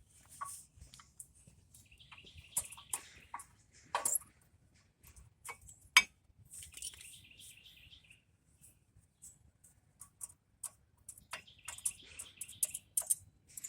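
Scattered metal clicks and clinks of brake pads being fitted into a car's front brake caliper bracket, with a sharp metal knock about six seconds in. Three short stretches of high, rapid chirping sound come and go.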